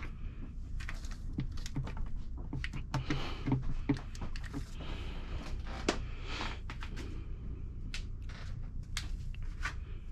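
Hands refitting car parts around the washer reservoir: irregular clicks, taps and brief rustles over a low steady hum.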